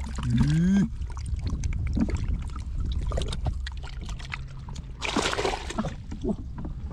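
Muddy water splashing and sloshing in a small dug hole as a hand gropes at catfish thrashing in it, with a louder splash about five seconds in.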